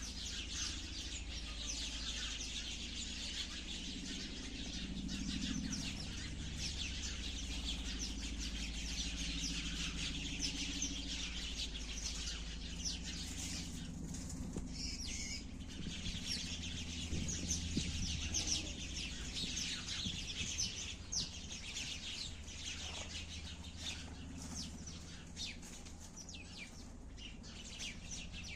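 A flock of sparrows chirping continuously, many short chirps overlapping into a dense chatter, over a steady low hum.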